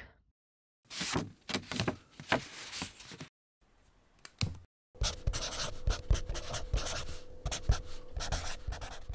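Pen writing on paper: a run of quick scratching strokes about a second in, a single sharp tap, then a longer, denser run of scratching from about five seconds in.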